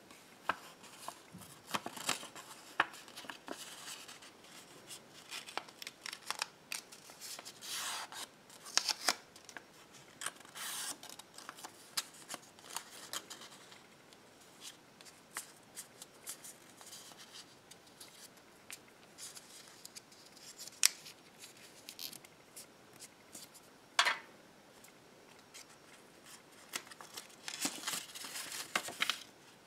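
Small folded slips of thin paper being handled, unfolded and smoothed by hand: scattered crisp crinkles, rustles and little clicks, with louder bursts of crinkling now and then and a cluster near the end as a slip is opened.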